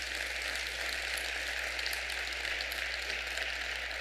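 Audience applauding steadily, a dense mass of many hands clapping.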